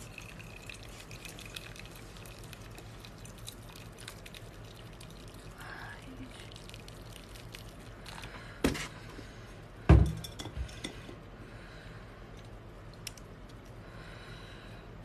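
Faint dripping and trickling of water with light clinks of kitchenware, broken by two sharp knocks of a dish or utensil a little over a second apart, the second the louder.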